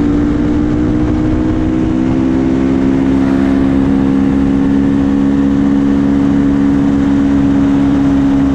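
KTM 450 supermoto's single-cylinder four-stroke engine running through a full HGS aftermarket exhaust, holding steady revs while riding, with wind buffeting the microphone.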